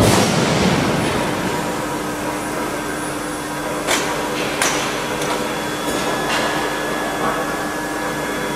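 Forge-shop machinery running with a steady hum, broken by sharp metal clanks: one at the start and two close together about four seconds in.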